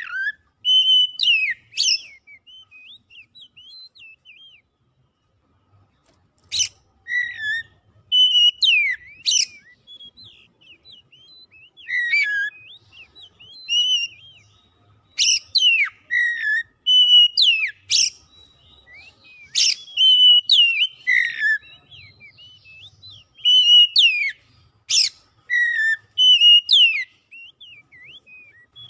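Oriental magpie-robin (kacer) singing: loud whistled phrases with sharp sweeping notes, repeated every couple of seconds, with quieter chattering notes between them and a brief pause about five seconds in.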